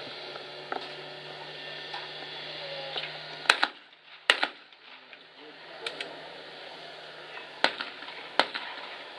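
Two pairs of .410-bore shotgun shots, fired as skeet doubles: two shots under a second apart about three and a half seconds in, then another pair about four seconds later.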